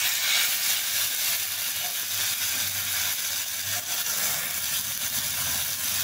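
Hot tempering oil with mustard seeds, sesame seeds, green chillies and curry leaves hissing and sizzling steadily, with about half a cup of water just poured in boiling up into steam.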